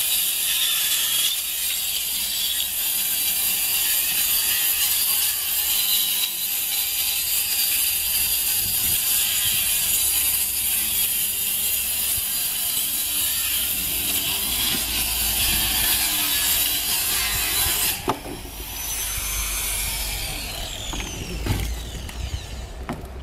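Handheld angle grinder cutting through a sheet of OSB board with a loud, steady, high-pitched whine. About three quarters of the way through it comes off the cut and its whine falls as the disc spins down, and a couple of knocks from the board being handled follow near the end.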